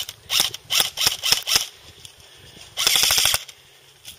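Airsoft guns firing several short full-auto bursts of rapid clicks, then one longer, louder burst about three seconds in.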